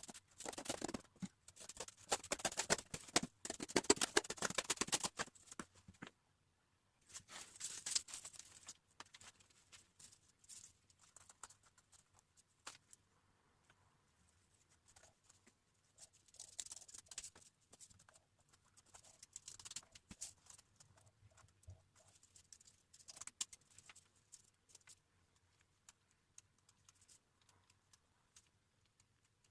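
Cardboard being handled and worked by hand: faint scraping, rustling and small clicks, heaviest through the first six seconds, then in short scattered bursts.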